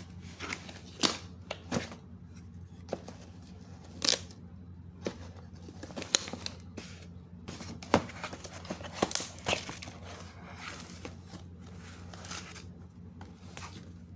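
Product packaging being opened and handled: irregular rustling, tearing and sharp clicks of plastic and paper, over a steady low hum.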